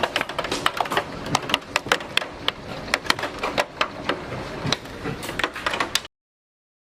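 Large hailstones pelting down: a dense, irregular run of sharp clacks that cuts off suddenly about six seconds in.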